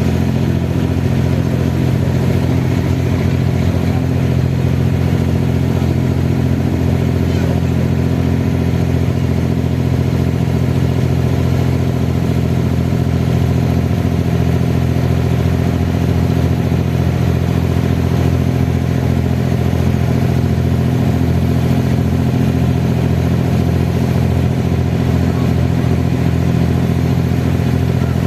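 An abra water taxi's engine running at a steady, unchanging speed, a loud, even hum.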